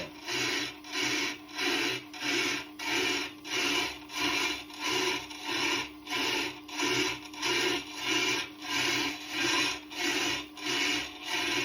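Tormek TT-50 truing tool's diamond cutter grinding across the turning Tormek stone: a rasping scrape that swells and fades about twice a second as it catches the wheel once per turn, typical of a stone still not round, over the steady hum of the grinder's motor.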